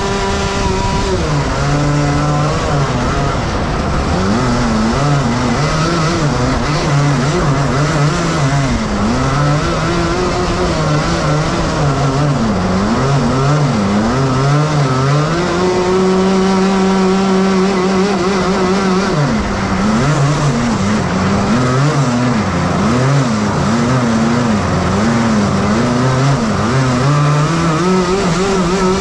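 Two 125 cc two-stroke Rotax Max kart engines running under throttle, their note rising and falling again and again through the bends. The pitch holds high for a few seconds at full throttle near the start and again about halfway through.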